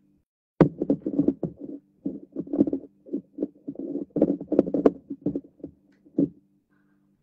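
A rapid, irregular series of knocks and thumps starting about half a second in and stopping near the end, over a steady low hum.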